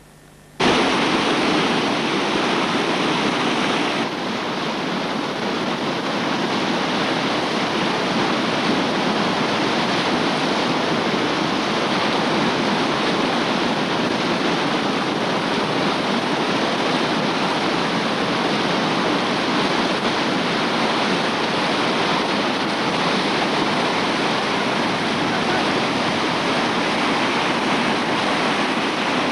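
Whitewater river rapid: a steady, loud rush of churning water that starts abruptly about half a second in, dipping slightly about four seconds in.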